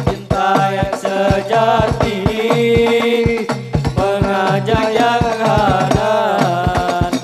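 Hadrah music: a male voice singing a drawn-out devotional melody through a microphone, over frame drums (rebana) struck in a quick, steady rhythm.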